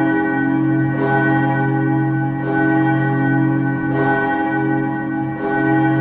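Steel church bell ringing, struck about every one and a half seconds, four strikes in all, each ringing on into the next.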